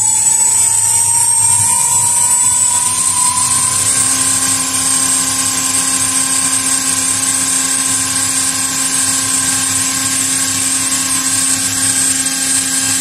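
Electric scooter's 6000 W rear hub motor spinning the lifted rear wheel freely at speed: a high electric whine that rises in pitch over the first few seconds, then holds steady.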